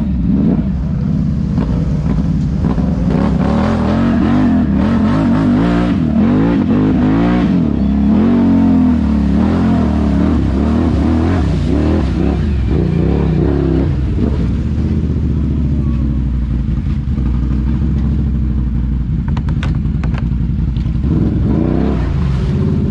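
ATV engine running under way, its pitch rising and falling with repeated revs through the first half, then holding steadier.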